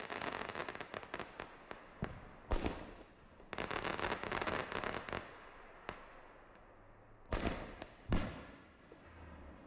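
Aerial fireworks going off: two long runs of rapid crackling, one at the start and one around the middle, with single sharp bangs between them and two more bangs near the end.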